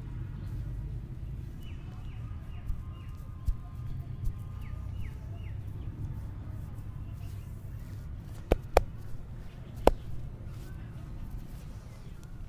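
Massage slaps or joint cracks: three sharp smacks about eight and a half to ten seconds in, over a steady low outdoor rumble, with small birds chirping briefly a few times early on.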